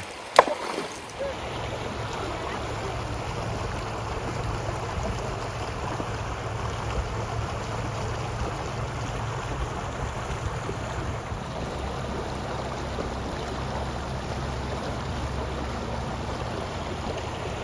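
Creek water running steadily over its bed, a continuous rushing with a low rumble underneath. A sharp click comes just after the start.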